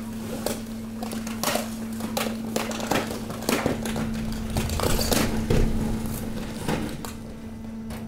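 Hydraulic waste press running with a steady low hum from its power unit. Mixed trash in the chamber crackles, snaps and knocks irregularly as it shifts and is compacted, heaviest around the middle.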